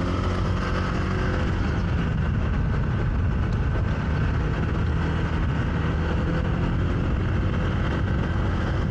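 Motorcycle riding noise heard through a helmet-mounted microphone: a steady rumble of engine, wind and road. A faint engine hum shows in the first two seconds or so, then fades into the noise.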